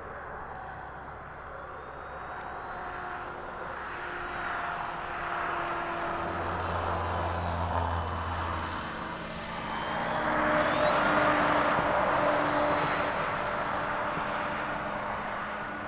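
Electric RC model airplane's motor and propeller running in flight, the sound swelling to its loudest about ten seconds in as the plane passes closer, then easing off.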